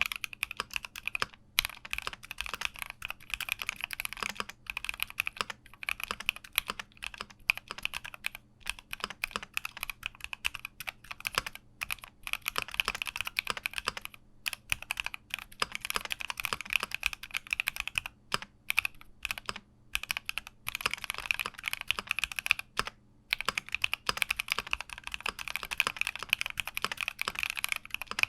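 Typing on a Keychron Q60 mechanical keyboard: a fast, dense run of key clicks that keeps stopping for brief pauses and starting again.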